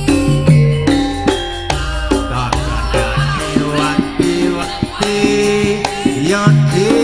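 Javanese tayub/campursari band music playing for dancing: held melodic notes and gliding melody lines over a steady percussion beat.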